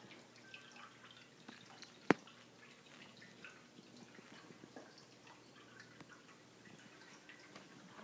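Pet drinking fountain trickling, with a steady run of small drips and splashes. A single sharp knock about two seconds in.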